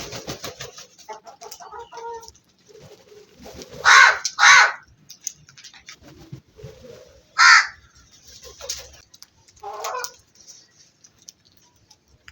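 Crows cawing: two loud harsh caws in quick succession about four seconds in, another a few seconds later, and a weaker one near the end, with softer calls in the first couple of seconds.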